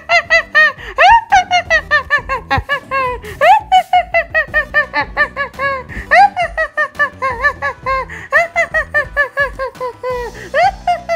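High-pitched cackling laughter: a fast, unbroken run of short "ha" sounds, several a second, with a few sharp upward swoops in pitch.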